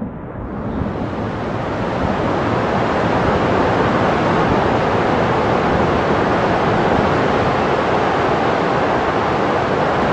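Reservoir water and mud bursting out through a hole blasted in the base of a concrete dam: a dense, steady rush of water that builds over the first couple of seconds and then holds.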